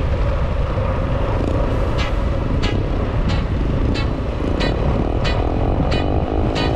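Heavy wind rush on the microphone as a bicycle coasts downhill on a concrete road, with a sharp tick roughly every two-thirds of a second. About six seconds in, the engine hum of a motorcycle tricycle comes in as it is passed.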